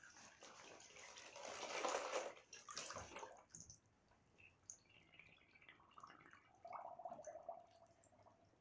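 Bathtub water sloshing as a Lego model ship is pushed through it by hand, loudest about two seconds in and dying away after about three and a half seconds. A few faint drips follow, and a short gurgle near the end.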